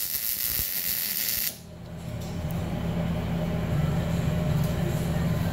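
MIG welder arc crackling steadily on steel tubing, cutting off abruptly about a second and a half in. After it, a steady low hum.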